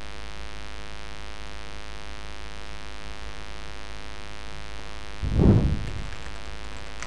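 Steady electrical mains hum with many evenly spaced overtones, and a brief louder low rumble about five seconds in.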